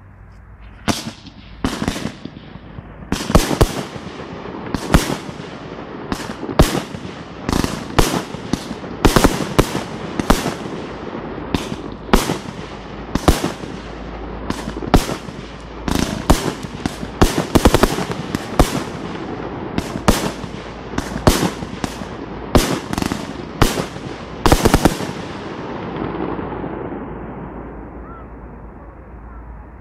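Aerial fireworks display: firework shells bursting in a rapid barrage of some thirty sharp bangs, each trailing an echo. The barrage stops about 25 seconds in and the echoes die away.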